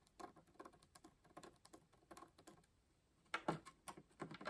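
Faint short scratches of a pencil tracing around an acrylic blank on sticker paper, about two or three a second. A few louder clicks and taps come about three seconds in as the pencil is set down and small pieces are handled on the tabletop.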